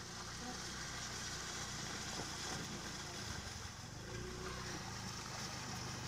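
Honda Dio scooter engine running steadily at a distance while it rides through a shallow stream, over a steady rush of flowing water.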